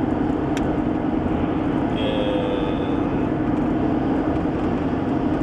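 Steady rumble and hiss of vehicle noise, even and unchanging, with a brief faint hum of a voice about two seconds in.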